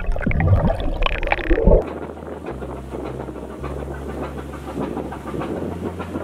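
Muffled underwater bubbling and splashing from swimmers, cut off suddenly about two seconds in by a steady rush of wind and water aboard a sailing boat under way.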